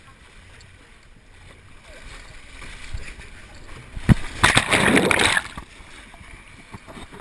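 Water rushing and a body sliding through an enclosed plastic water-slide tube, heard close up. About four seconds in there is a sharp knock, then a loud splash lasting about a second as the rider shoots out into the pool, after which the water washes quietly.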